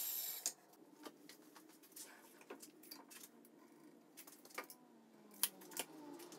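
A Ridgid circular saw with a Diablo blade finishes a crosscut through a hardboard strip, and its cutting noise stops about half a second in. Then come scattered light clicks and knocks from handling a tape measure and boards.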